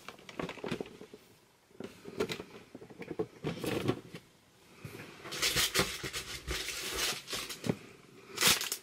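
Cardboard boxes and packaging being handled: scattered knocks and scrapes as a boxed item is put down, then denser rustling from about halfway as the next item is dug out of the box, with a sharper knock near the end.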